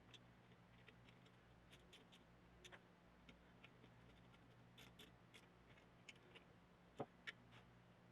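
Near silence with faint, irregular small clicks and ticks of hand tools and metal parts being handled, two sharper clicks about seven seconds in, over a faint low hum.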